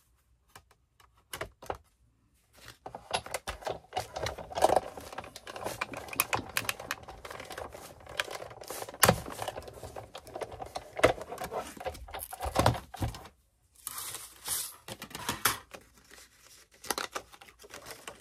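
Cardstock and a cutting die in its plate sandwich being handled and run through a die-cutting machine: dense clicking and crinkling paper, broken by a short pause a little after the middle.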